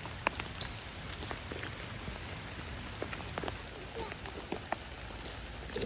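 Rain falling, a steady hiss with many irregular sharp drop taps close by.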